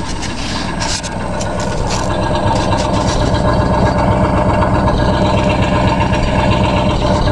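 Freshly rebuilt 1965 Ford 352 FE big-block V8 idling steadily, heard close at the tailpipe, growing a little louder over the first couple of seconds.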